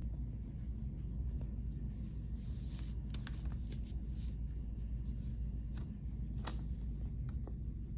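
Felt marker scratching along a ruler on newspaper, with paper rustling briefly about two and a half seconds in and a few sharp clicks from the ruler and marker, over a steady low hum.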